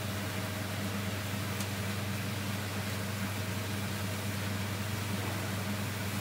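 Steady hiss and low hum of a gas-fired infrared grill and its extraction fan running, with no distinct sizzling.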